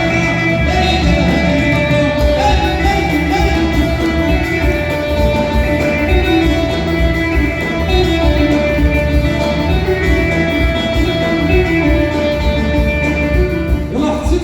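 Live band playing a loud instrumental passage of Hassaniya Sahrawi music, without vocals.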